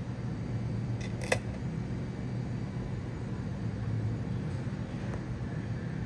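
Steady low background rumble, with one sharp click about a second in as a bottle-cap lure with metal treble hooks is set down on the plastic platform of a digital kitchen scale.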